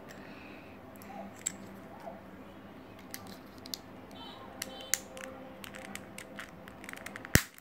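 Plastic centre caps being pressed back into a GAN Monster Go 3x3 speed cube: scattered small clicks and taps of plastic on plastic as the cube is handled, with a short rattle about four seconds in and one sharp, louder click near the end.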